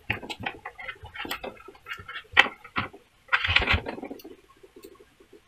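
Rustling and scattered clicks of a chin-mount strap and its plastic parts being handled and threaded around a motorcycle helmet's chin bar; the handling noise thins out after about four seconds.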